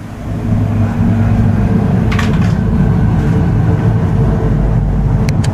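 Loud low droning rumble with a steady hum that swells in over the first second and then holds, with a few faint clicks about two seconds in and again near the end.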